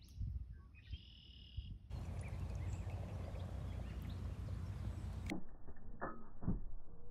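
Outdoor lakeside sound on a phone microphone. About a second in there is a short bird call, then a steady rushing noise that ends abruptly, then a few sharp knocks and a low thump.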